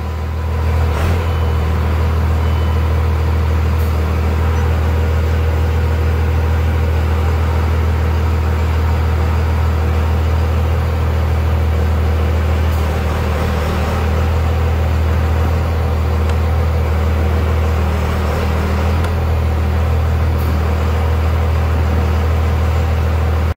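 2002 Dodge Ram pickup's engine idling steadily, heard from inside the cab near the pedals, with a strong low hum that does not change.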